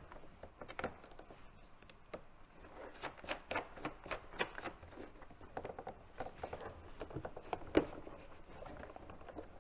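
Hard plastic parts of the DJI Agras T40's spray pump assembly clicking and knocking as they are handled and worked loose by hand: light, irregular taps, with one sharper knock late on.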